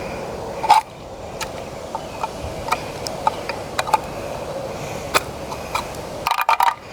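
Scattered metallic clicks and scrapes as a cut-open spray paint can is pried apart with a tool to free its mixing ball, with a louder knock about two-thirds of a second in and a quick cluster of clicks near the end.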